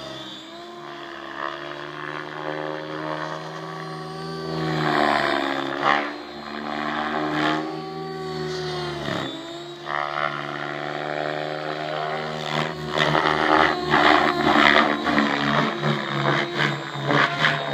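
Electric JR Propo Forza 700 RC helicopter in flight: a steady rotor-and-motor hum whose pitch dips and recovers twice as the blades load up in manoeuvres. In the last few seconds it turns louder and choppier.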